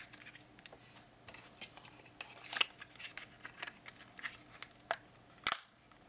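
Small plastic clicks and taps as a battery is seated in a CamRanger wireless camera controller and its plastic back cover is fitted back on, with one sharper snap about five and a half seconds in.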